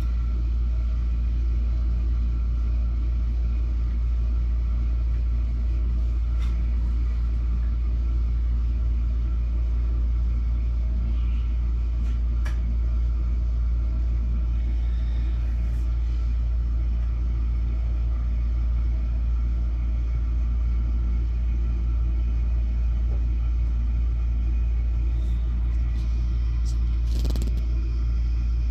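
A steady, unchanging low rumbling hum, with a few faint clicks over it, one about halfway through and a couple near the end.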